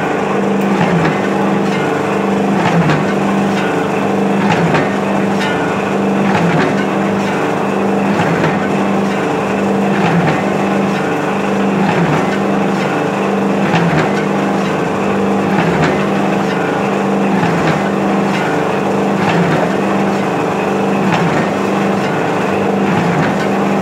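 A 250 kg pan mixer running empty, its drive humming steadily while the mixing blades turn in the steel pan, the hum pulsing about every two seconds with each turn.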